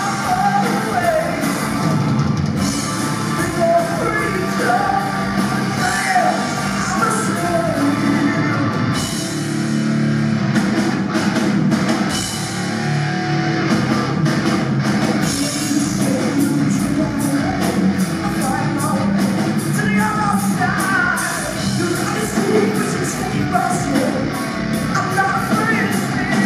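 Live heavy metal band playing loud: a female singer belting over distorted electric guitar, bass and a pounding drum kit, with a stretch in the middle where the drums and guitars carry on without the voice.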